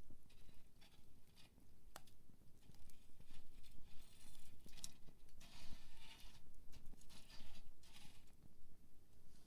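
Wood campfire crackling: irregular snaps and pops of burning firewood, with a busier stretch of crackling in the middle.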